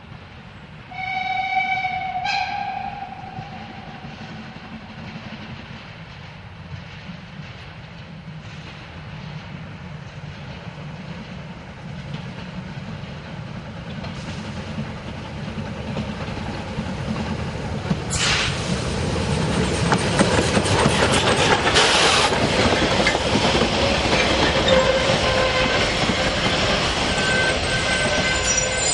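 Narrow-gauge steam locomotive 99 6001-4 gives one whistle blast about a second in, lasting about a second and a half and stepping slightly up in pitch at its end. Then its running sound grows louder as it approaches and becomes a loud rush as it passes about two-thirds of the way through, followed by the coaches rolling by on the rails.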